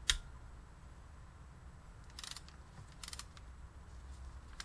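A sharp metal click, then two short bursts of rapid clicking from a hand ratchet being worked on the cylinder head bolts, with a couple of lighter clicks near the end.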